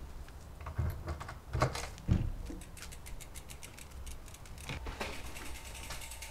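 A few footsteps on paving, then a mountain bike's rear freewheel hub ticking rapidly and evenly as the bike is wheeled along.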